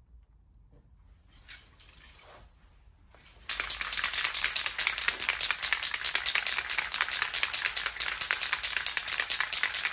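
Aerosol can of hydro-dip activator shaken hard before spraying, its mixing ball rattling rapidly and evenly. The rattle starts about three and a half seconds in and continues steadily.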